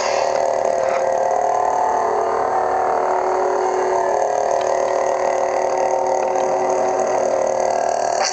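Custom lightsaber's Petit Crouton 2.0 sound board playing its idle hum through the speaker in the hilt while the blade is lit: one steady, unbroken hum.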